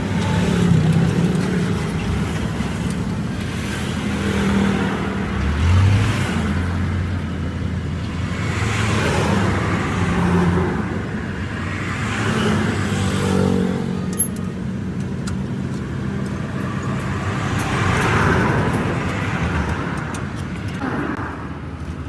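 Road traffic: motor vehicles running and passing close by, one after another, their engine notes rising and falling. A single sharp click sounds about 14 seconds in.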